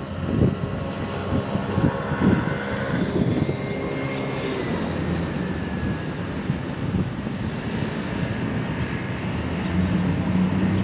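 Road cars and a pickup driving past close by, with tyre and engine noise, over the rumble and irregular wheel clacks of a freight train's covered hopper cars rolling away over the rails. A steady low engine hum grows louder near the end.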